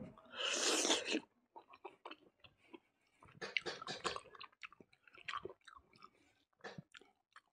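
Close-miked mouth sounds of a man eating rice and fatty pork by hand: a louder noisy burst as a handful goes into the mouth about half a second in, then scattered wet chewing clicks and smacks.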